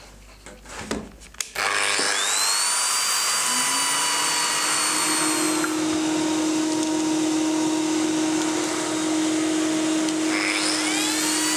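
Lamello Zeta P2 joining machine's motor spinning up about two seconds in and running steadily, with a vacuum-like dust-extraction drone joining a moment later. Near the end the motor's whine sags and climbs again.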